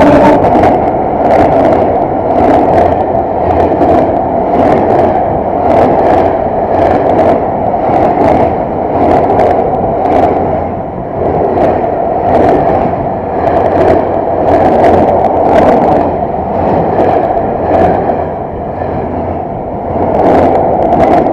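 Tank wagons of a freight train rolling right over the microphone between the rails: a loud, steady rolling rumble of steel wheels on rail, with regular clacks, about one to two a second, as the wheelsets cross rail joints.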